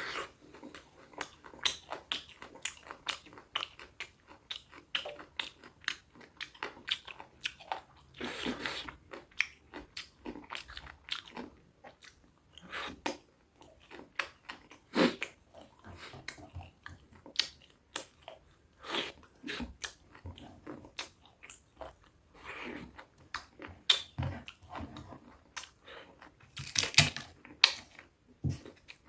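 A person chewing and biting crunchy food close to the microphone: a constant run of crisp crunches and wet chewing clicks, with a few louder, longer crunches partway through and near the end.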